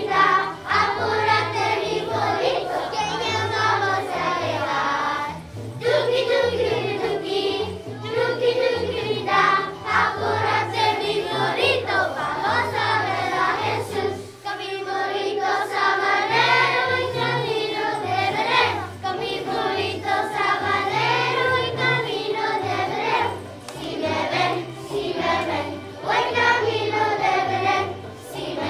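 Children's choir singing a song in unison over an instrumental accompaniment with a steady bass line. There is a brief pause about halfway through.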